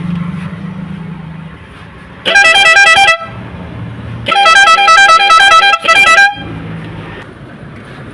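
Air horn newly fitted to a Bajaj auto-rickshaw, sounded in three loud blasts: a short one, a longer one and a brief final one. Each blast warbles rapidly between notes.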